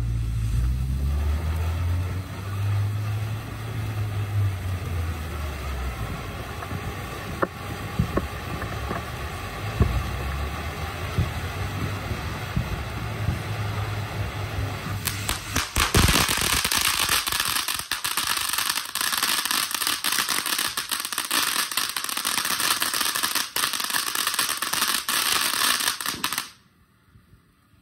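TNT Fireworks 'Crypto' ground fountain firework hissing as it sprays sparks. About halfway through it turns into a louder, denser crackling, then cuts off suddenly near the end. A low rumble runs underneath for the first several seconds.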